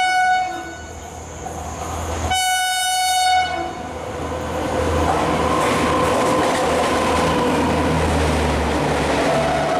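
WAP-5 electric locomotive's horn sounding twice: the first blast cuts off just after the start, and a second, about a second long, comes about two and a half seconds in. From about four seconds in, the express runs through at speed: a loud, steady rush of wheels and coaches that builds and holds.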